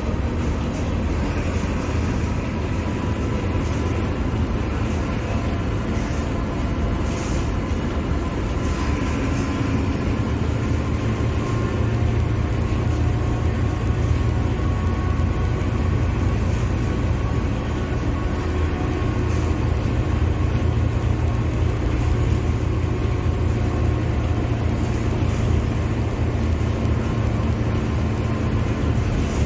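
Mercedes-Benz OF-1721 Bluetec 5 bus's four-cylinder turbodiesel engine running steadily, its pitch drifting slowly up and down with changes in engine speed.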